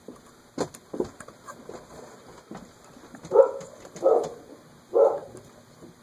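A dog barking three times, short barks less than a second apart, after a few faint clicks from wire leads being handled.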